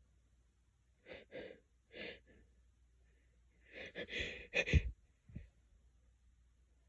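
A series of sneezes: a few short, softer bursts, then a louder cluster around four to five seconds in, the loudest near its end, followed by one small burst.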